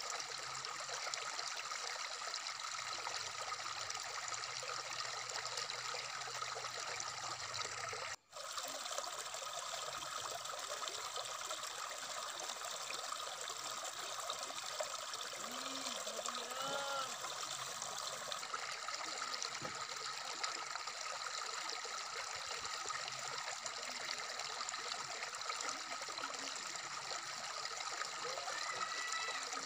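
Shallow stream running over rocks: a steady babbling and trickling of water that cuts out for an instant about eight seconds in.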